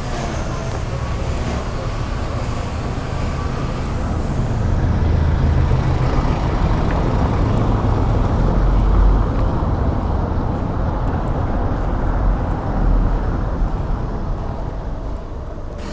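A motor vehicle passing close by: a low engine and road rumble that builds, is loudest around the middle and fades near the end.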